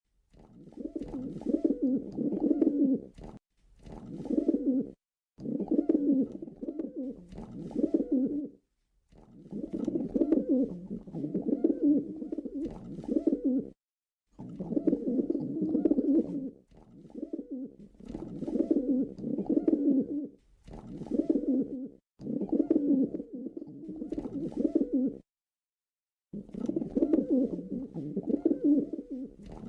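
Pigeon cooing over and over: low, pulsing coos in runs of one to several seconds with short pauses between.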